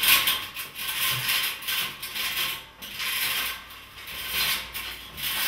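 Folding metal scissor loft ladder rattling and creaking in uneven bursts under a person's steps as they climb down it.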